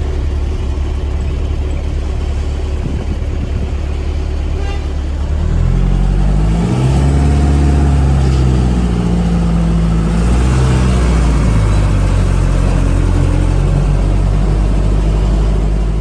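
Mitsubishi bus diesel engine heard from inside the cabin, running with a low rumble. About five seconds in it revs up louder as the bus accelerates, its pitch rising and dropping with the gear changes.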